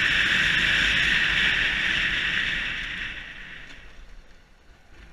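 Steady wind rush and running noise of a Yamaha YBR125 motorcycle on the move, a loud even hiss over a low rumble, dying away over the last two seconds.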